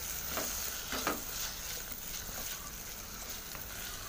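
Chopped onion and tomato sizzling in hot oil in a pan while being sautéed, stirred with a wooden spatula that scrapes across the pan a couple of times in the first second or so.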